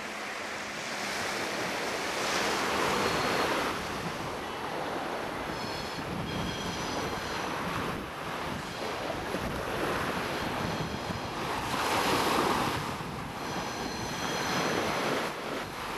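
Sea waves breaking and washing up a shingle beach, swelling and falling back every few seconds. A faint high whine comes in twice, about midway and near the end.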